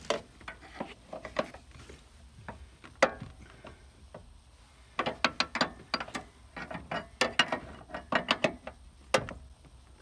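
A hooked door-hinge-pin puller is struck again and again on a truck door's upper hinge pin, drawing the pin out past the door spring. The sound is sharp metal clinks and knocks, a few scattered at first, then a quick run of about four a second from about halfway.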